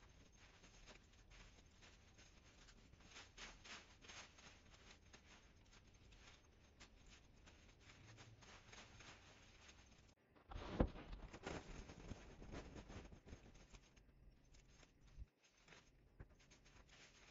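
Faint rustling of cut hedge branches and leaves being pulled and handled. The rustling is louder for a few seconds about ten seconds in, and that stretch starts with a sharp knock.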